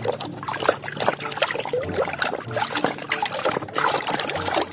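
Water trickling and splashing over a muddy plastic toy as it is rinsed, with many small knocks and clicks throughout.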